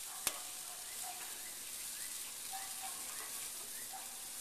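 Food sizzling on a grill: a steady hiss, with one sharp click about a quarter second in.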